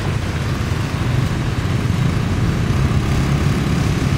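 Floodwater from the Ping River rushing across a street as a steady, even rush, with motorbike engines running through the water.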